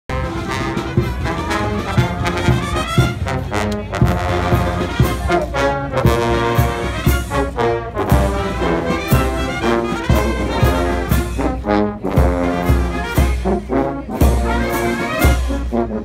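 Military brass band playing a march, with trombones and trumpets carrying the tune over a steady beat of bass drum and cymbals.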